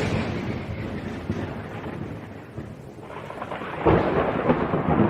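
Thunder rumbling with rain: a long rumble fades from a loud clap, then a second rumble swells about four seconds in.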